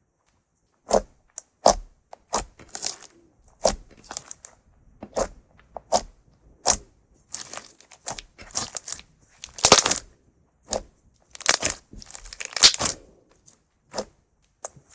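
Thick clear slime made from laundry starch and borax water being squeezed and stretched by hand, giving sharp pops and crackling clicks in irregular bursts, about one or two a second.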